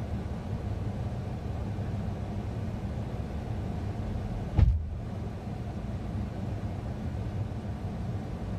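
A steady low rumble with one short, sharp thump a little past the middle, the loudest moment.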